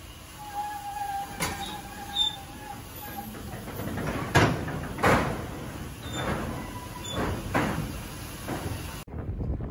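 Ruston Hornsby steam face shovel's steam engine working from the controls, giving a series of irregular chuffs, about six in the second half.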